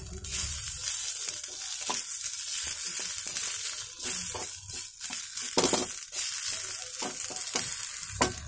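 Sliced ivy gourd sizzling in oil in a frying pan, with a wooden spatula stirring and scraping through it in irregular strokes. The gourd is fried to the point wanted for chutney.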